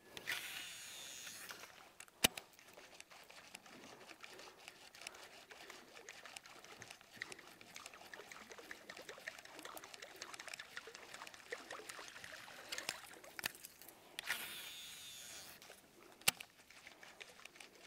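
Faint trickling, lapping river water. Twice a brief hissing rush is followed about a second later by a single sharp click.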